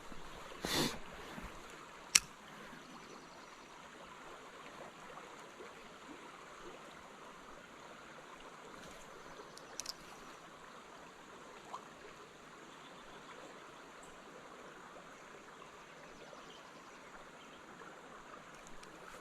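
Spring creek running steadily, a soft even rush of water. A brief rustle just under a second in, then a single sharp click about two seconds in, the loudest sound here.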